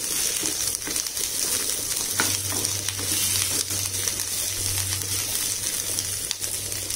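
Boiled tapioca (cassava) cubes sizzling in oil in a nonstick pan while a wooden spatula stirs them, with scattered scraping taps of the spatula against the pan.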